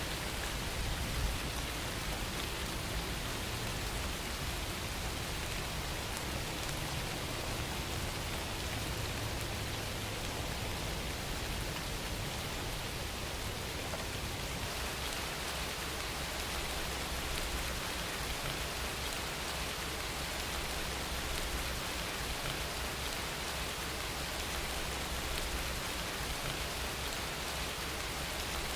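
Steady rain falling, a continuous rain ambience; its low rumble shifts slightly about halfway through.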